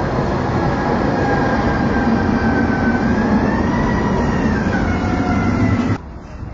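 Tatra T3-type tram running past, a steady rumble with a high whine that rises and then falls in pitch. The sound cuts off abruptly about six seconds in.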